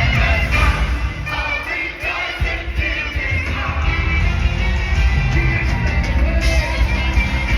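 Live worship music: voices singing over a band with a heavy bass, the bass dropping out briefly about two seconds in.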